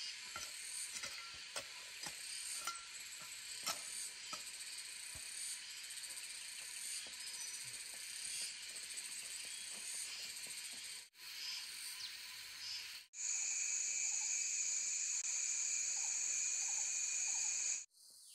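Steady high-pitched insect drone, with scattered light clicks and taps in the first part. After a cut about two-thirds of the way through, the drone becomes much louder and fuller.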